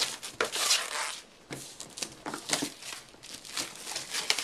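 Clear plastic shrink-wrap being torn and pulled off a cardboard product box, crinkling and crackling in short irregular crackles.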